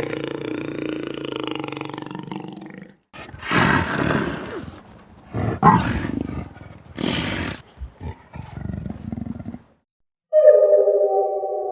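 A large animal calling: a low, drawn-out call, then three rough, breathy calls over the next few seconds. Music starts near the end.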